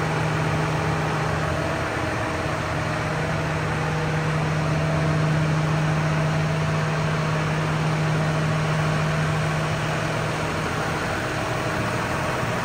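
John Deere 6215R tractor's six-cylinder diesel engine idling steadily, a constant low hum.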